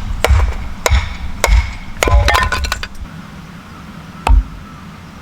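A series of sharp knocks, about one every half second, then a quick cluster of clinks with a short metallic ring, and a single knock near the end.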